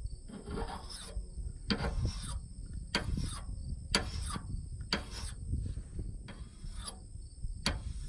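Jasper whetstone puck being rubbed along a steel axe edge by hand, a rhythmic series of gritty scraping strokes about once a second.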